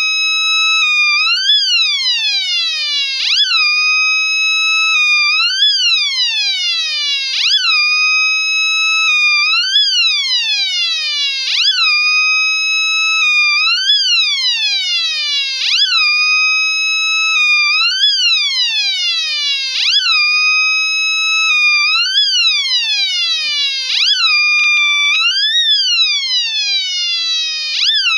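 Homemade electronic siren with an output amplifier stage, sounding a buzzy tone in a cycle that repeats about every four seconds: a steady note, a short rise, then a long falling glide before it jumps back up.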